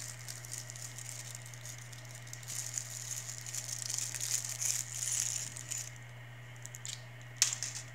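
Plastic MRE packets crinkling as they are handled and pulled open, in irregular rustles for about six seconds, then a single sharp click near the end. A steady low hum runs underneath.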